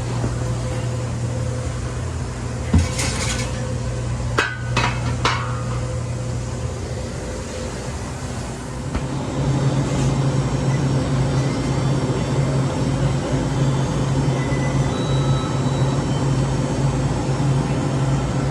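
Vehicle engine and road noise heard from inside the cab, a steady low hum that gets louder about nine seconds in. A single knock comes near three seconds, and a quick run of sharp clacks with a metallic ring follows a second or two later.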